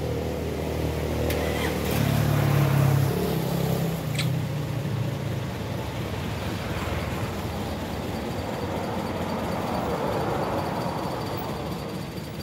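Engines of passing road vehicles running, one growing louder about two seconds in and fading again after about four seconds, with another swell near the end.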